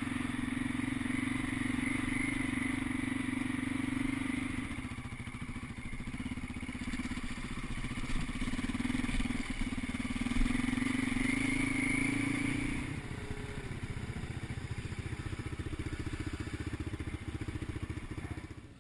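Motorcycle engine running under throttle, heard from on board the bike, easing briefly about five seconds in. About thirteen seconds in it backs off to a quieter, steady low-speed run.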